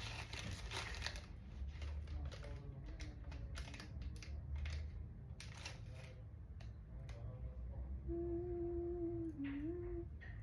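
Small items and their packaging being handled: short crinkly rustles and light clicks, then a person humming a held, wavering note for about two seconds near the end.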